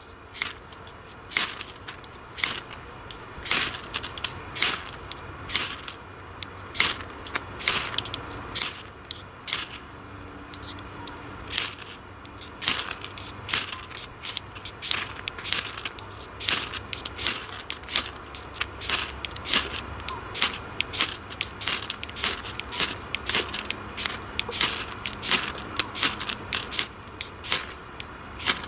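Ferro rod (Überleben 'Zünden' fire steel) scraped hard and repeatedly, about one or two sharp rasping strikes a second, throwing sparks onto damp sawdust tinder that has not caught.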